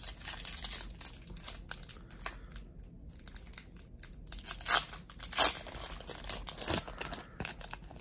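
Foil wrapper of a 1991 Pro Set PGA Tour card pack crinkling and tearing as it is pulled open by hand, with a few louder rips between about five and seven seconds in.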